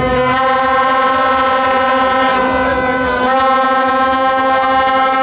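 A horn blaring on one steady note over a crowd, held without a break through the whole stretch.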